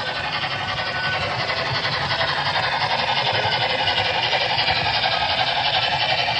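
Model train running on track: a steady motor whir with fast rhythmic clatter, swelling about midway and easing off near the end as it passes. The sound is normal for this locomotive, not wheel slip.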